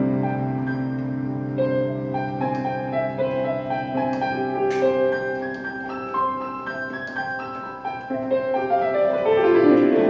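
Sampled piano played from a keyboard controller: a run of separate notes over held bass notes, with a brief sharp click about halfway through.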